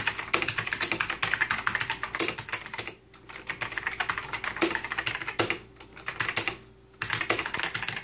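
Fast typing on a Rosewill RK-6000 mechanical keyboard: a quick run of key clicks, broken by short pauses about three seconds in and again around six to seven seconds in.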